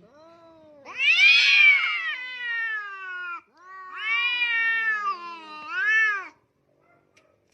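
A cat meowing in three drawn-out calls. The first and longest rises and then slides down, the second is similar, and the third is short. A faint steady hum sits under the opening second.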